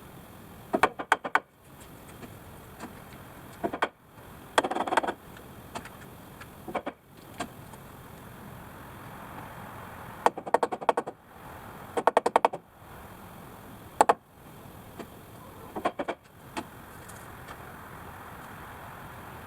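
Short bursts of rapid rattling knocks, each under a second long, repeated about six times, with a few single sharp knocks between, from carpentry work on the barn's timber.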